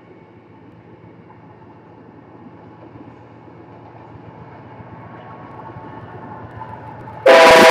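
Approaching Canadian Pacific diesel freight locomotive: a low, steady rumble that slowly grows louder. About seven seconds in, a sudden loud blast of its multi-note air horn, sounded for a level crossing.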